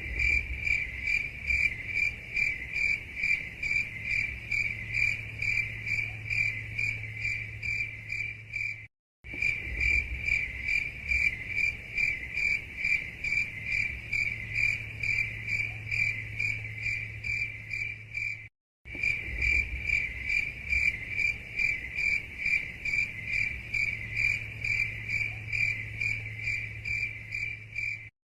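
Cricket chirping: a high, pulsing trill in a quick, regular rhythm of a few chirps a second. It cuts out to silence briefly twice, where the recording loops.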